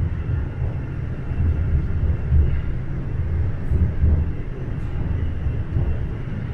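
TTC Line 4 subway train running in the tunnel, heard from inside the car: a steady low rumble of wheels on rail and traction motors, rising and falling slightly in level.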